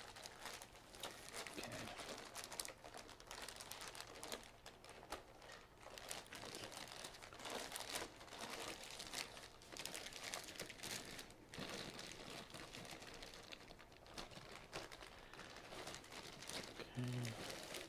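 Clear plastic wrapping crinkling and crackling as hands pull and fold it around a rolled print, with many small crackles throughout.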